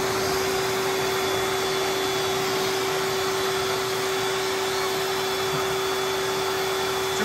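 AIIYME high-velocity dog grooming dryer blowing air through its hose nozzle: a steady rush of air with a constant motor hum, holding one speed throughout.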